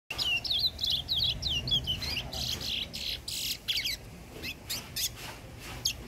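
Small caged brown songbird singing: a fast twittering run of high chirps over the first two seconds, then rougher bursts and a few sharp, isolated rising notes toward the end.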